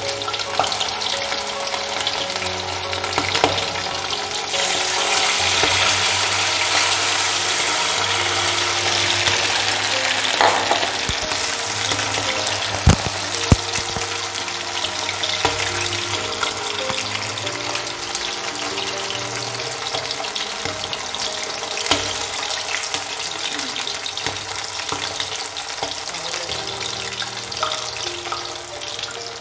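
Marinated whole quail deep-frying in hot oil in an aluminium kadai: a steady dense sizzle and bubbling that grows louder about five seconds in, with a few sharp knocks near the middle.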